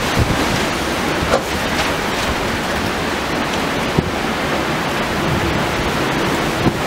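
Heavy rain and strong storm wind making a steady, loud rushing, with wind buffeting the microphone. A brief tap about four seconds in.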